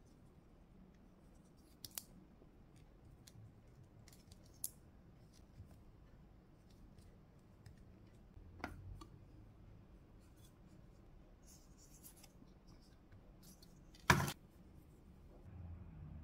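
Hard plastic toy figures handled in the hands: scattered light clicks, taps and scrapes, with one sharp, louder knock about fourteen seconds in.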